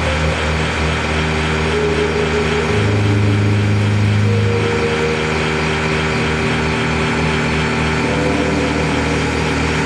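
Loud experimental electronic drone from the performance's sound devices: sustained low tones layered over a dense hiss, with a strong deep tone swelling in about three seconds in and fading again about two seconds later.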